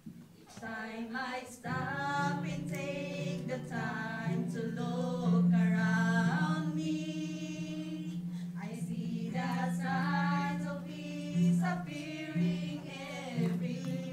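A women's vocal group singing a slow worship song together, with a steady low note held underneath from about two seconds in.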